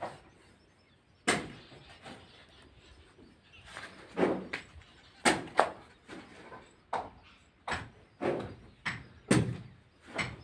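A series of sharp knocks and bangs at irregular intervals, roughly one a second, as on a construction site.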